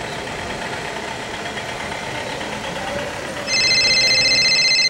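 Steady background noise. About three and a half seconds in, a mobile phone starts ringing: a loud, high electronic ringtone.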